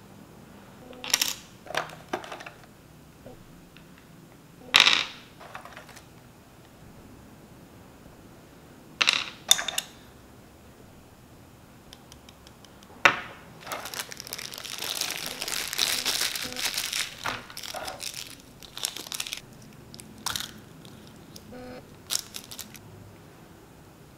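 Small plastic parts of a Nendoroid figure being handled, clicked together and set down, with scattered sharp clicks and taps. In the middle comes a few seconds of plastic packaging crinkling.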